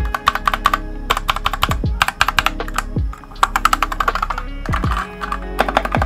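Custom 60% mechanical keyboard, a GK61 hot-swap PCB fitted with KTT Grapefruit linear switches, typed on in quick runs of keystrokes with short pauses between runs. Background music with a regular low beat runs underneath.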